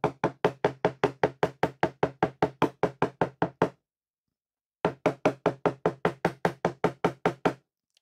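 A clogged pleated paper vacuum-cleaner filter being knocked against a plastic tub to shake the caked dust out: rapid, even knocks about six a second. The knocking stops for about a second midway, then starts again.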